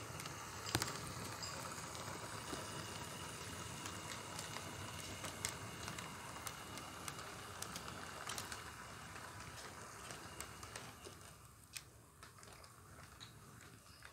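HO scale model train rolling past: a steady running noise with scattered sharp clicks from the wheels on the track, growing quieter about eleven seconds in as the last cars go by.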